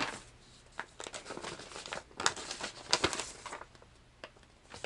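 Paper rustling and crinkling as a letter is pulled out of an envelope and unfolded, a run of small crackles that dies away near the end.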